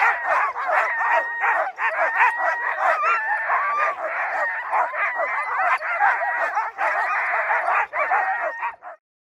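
A harnessed sled-dog team of huskies barking and yelping at once, many overlapping calls in a dense, continuous chorus. The sound cuts off suddenly near the end.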